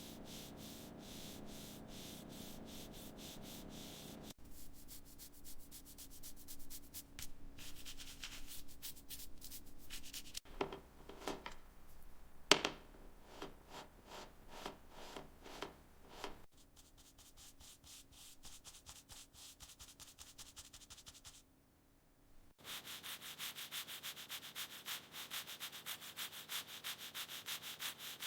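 Hand sanding: fast, rhythmic back-and-forth rubbing strokes, heard as several short clips cut together, with one sharp knock about halfway through.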